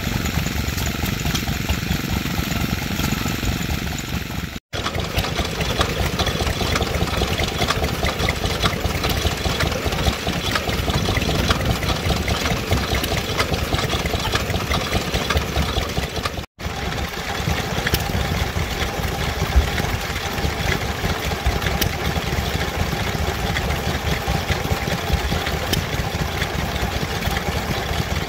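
Small vintage single-cylinder stationary engines running steadily, belt-driving water pumps. The sound drops out for an instant twice, about 5 and 16 seconds in.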